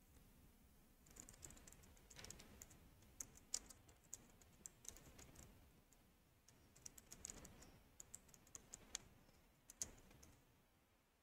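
Faint computer keyboard keystrokes, in two spells of typing with a pause of about a second between them.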